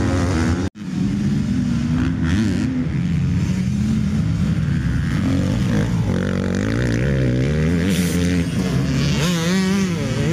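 Several motocross bikes' engines revving up and down as they ride the track, their pitch rising and falling over and over. The sound cuts out suddenly for an instant under a second in.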